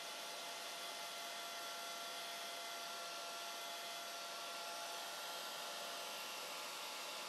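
Handheld hair dryer running steadily: an even rush of air with a faint steady whine from the motor, drying wet watercolor paint.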